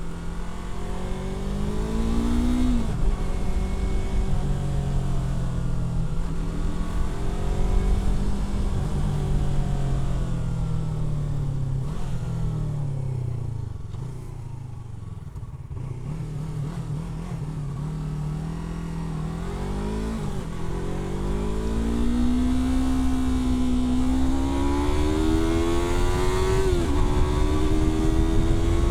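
Yamaha R3's parallel-twin engine on the move, pulling up through the revs with a quick gear change about three seconds in. It eases off and slows midway, then accelerates again steadily, with another sharp upshift near the end.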